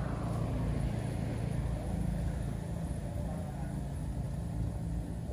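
Steady low mechanical hum with a rumble beneath it, like a motor running continuously.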